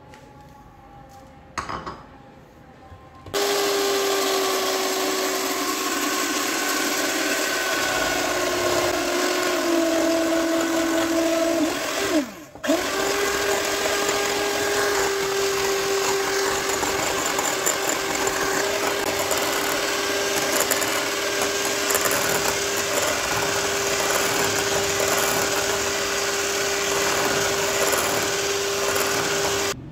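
Electric hand mixer beating eggs and sugar in a bowl for sponge cake batter. The motor starts about three seconds in with a steady whine, cuts out for a moment about twelve seconds in, then runs on steadily.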